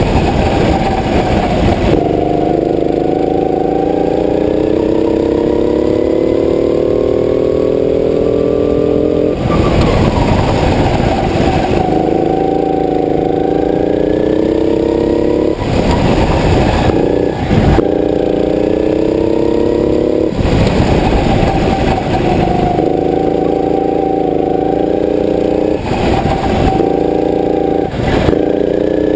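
Go-kart engine running hard through laps, heard from on board the kart. Its pitch climbs steadily down each straight, and about five times it breaks into a few seconds of rough noise where the driver comes off the throttle for the corners, then picks up again lower.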